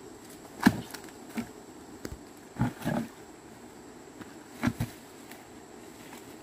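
Footsteps in rubber boots crunching through dry bamboo leaf litter on a slope, with the plastic bucket of bamboo shoots bumping as it is carried. There are a handful of separate thuds and rustles, the sharpest about a second in, over a faint steady high insect tone.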